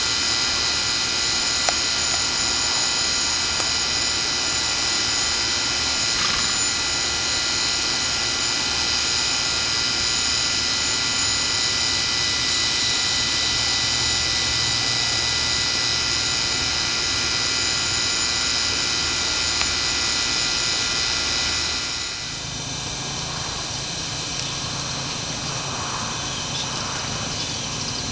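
Radio-controlled model airplane's motor and propeller running with a steady whine, which gets quieter about 22 seconds in.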